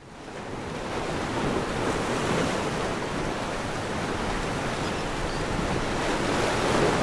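Ocean surf washing onto a beach, a steady rush of waves that fades in from silence over the first second.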